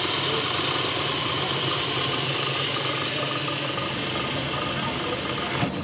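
Pillar drill running with a large hole saw fitted: a steady, loud whir with a low hum underneath.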